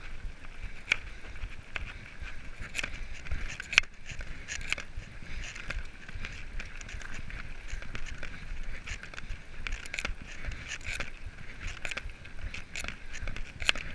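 Mountain bike rolling over a loose gravel track: steady tyre crunch and rumble with the bike rattling over bumps in many sharp clicks, the loudest one about four seconds in. Wind rumbles on the microphone.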